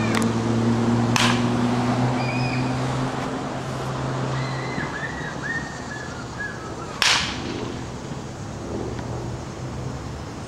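Baseball bat hitting balls in batting practice: two sharp cracks about six seconds apart, one about a second in and a louder one a little past halfway. A low engine hum fades out over the first few seconds.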